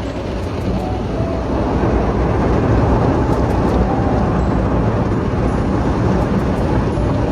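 Automatic car-wash machine running, a steady heavy noise of machinery and spray that grows louder over the first two seconds as it comes closer.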